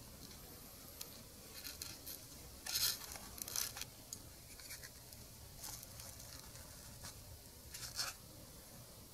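A cat licking its belly fur: short, quiet rasping scrapes of its tongue, several in a row in the first four seconds and a couple more later on.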